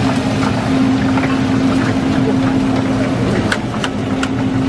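Steady low machine hum over the hiss of deep-frying oil, with three light metallic clicks of tongs on a perforated steel draining tray from about three and a half seconds in.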